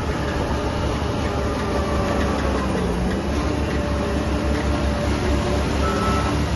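Heavy diesel construction machinery running steadily, its engine pitch dipping and rising a little mid-way. Near the end a reversing alarm starts beeping.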